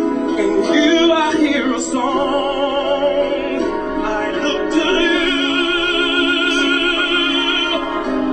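Music: a song in which a singer holds long notes with strong vibrato over instrumental backing.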